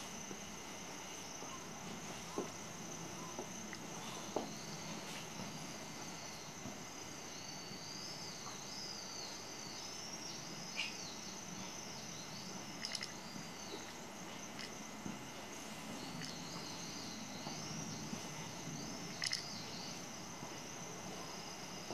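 Quiet outdoor ambience: a steady high-pitched whine under faint warbling chirps that come and go, with a few sharp clicks.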